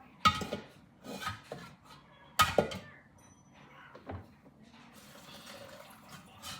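Kitchenware being handled: a few sharp knocks and clanks, the two loudest just after the start and about two and a half seconds in, each with a short ringing tail.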